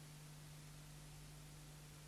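Near silence: a silent film with no soundtrack, leaving only faint steady hiss and a low mains-like hum.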